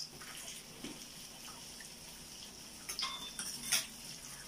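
Pork belly sizzling on a tabletop grill pan, a steady hiss, with a couple of short sharp clicks about three seconds in.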